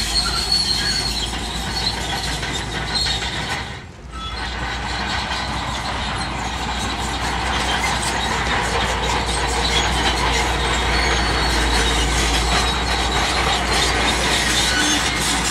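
Crawler bulldozer working: diesel engine running steadily under the metal squeal and clatter of its steel tracks. There is a short break about four seconds in.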